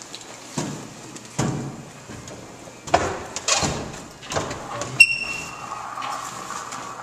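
Knocks and thumps of a door being pushed open and bodies and gear bumping through the doorway as an airsoft team enters a room. About five seconds in there is a sharp click and a short high beep, then a steady droning tone.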